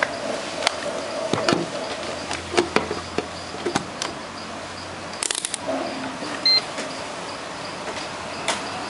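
Scattered light clicks and knocks from handling a digital multimeter and its temperature probe, with a quick run of clicks about five seconds in and one short high beep soon after.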